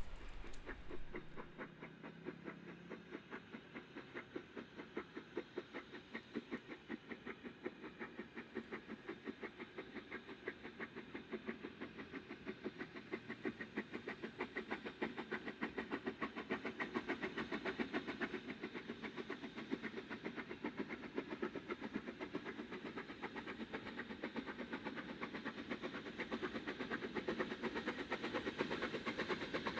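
Narrow-gauge steam locomotive working along the line, its exhaust beating in a rapid, even rhythm that grows louder as it draws closer.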